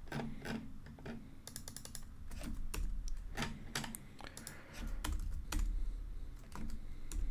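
Typing on a computer keyboard: irregular keystrokes, with a quick run of taps about one and a half seconds in.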